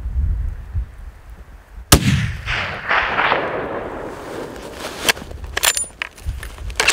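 Single rifle shot about two seconds in, its report rolling and echoing off the surrounding mountains for a couple of seconds as it fades. Several sharp clicks follow near the end.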